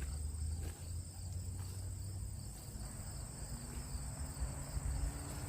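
Crickets chirring in a steady, high-pitched drone, over a low rumble.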